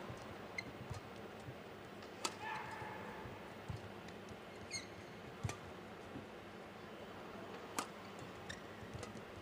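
Badminton rally: sharp cracks of rackets striking the shuttlecock a few seconds apart, with brief high squeaks of court shoes on the floor and soft footfalls between shots, over faint arena hall noise.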